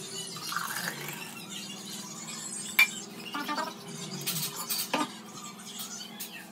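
A spoon scraping and clinking against a steel mixer jar as thick shake is scooped out into a jug, with a sharp clink just under three seconds in and another about five seconds in, over a faint steady hum.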